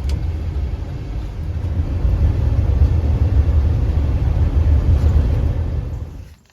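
Low, steady road and engine rumble inside a moving vehicle's cabin. It fades away near the end.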